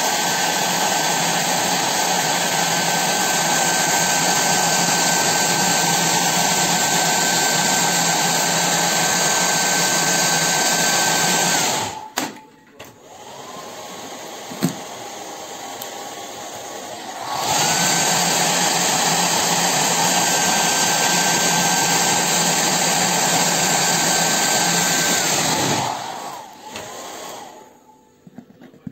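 Hair dryer running with a steady whine, blowing on a luggage sticker to loosen it. It cuts off partway through, starts again a few seconds later, and cuts off again near the end, winding down as it stops.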